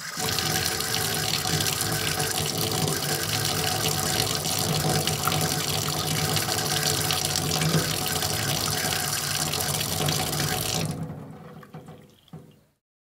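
Faucet running steadily into a wash basin, then turned off about eleven seconds in, the water tailing off over a second or two with one last small splash.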